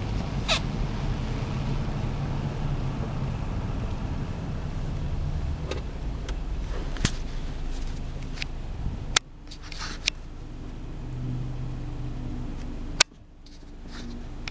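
A steady low rumble of a car. Two sharp clicks, one a little past halfway and one near the end, are each followed by a quieter stretch.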